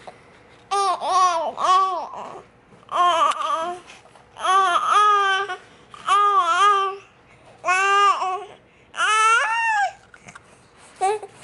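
Young baby babbling and cooing in about six drawn-out vocal sounds, each about a second long with pitch arching up and down, separated by short pauses.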